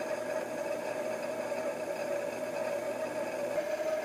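Milling machine spindle belt-driven by a 1 kW DMM AC servo motor, running at a constant high speed (about 5,000 RPM at the motor): a steady whine over a light whir from the spinning pulleys.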